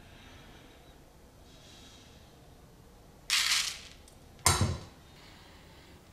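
Cumin seeds poured from a measuring spoon into a stainless steel mixer-grinder jar, landing on dried red chillies and coriander seeds with a short rustling hiss about three seconds in, followed a second later by a single sharp knock.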